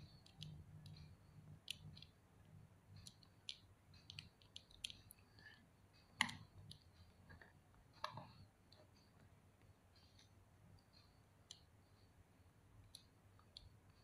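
Faint, scattered clicks of an action figure's armor parts and joints being handled and moved into a pose by hand, with two louder clicks about six and eight seconds in.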